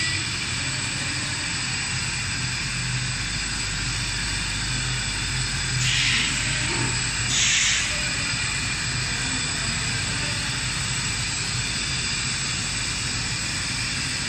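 Silicone rubber extrusion and vertical vulcanization line running: a steady machine hum and hiss, with two brief louder hisses about six and seven and a half seconds in.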